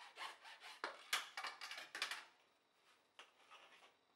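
Hacksaw cutting through a plastic cable conduit tube in quick back-and-forth strokes, about two to three a second, stopping a little over two seconds in. Faint handling rustle and a light tap follow.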